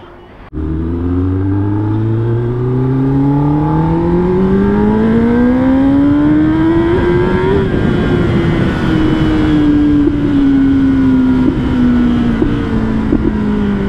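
Kawasaki ZX-10R's inline-four engine revving up smoothly in one long pull for about seven seconds, then the revs slowly falling away as the throttle is eased off.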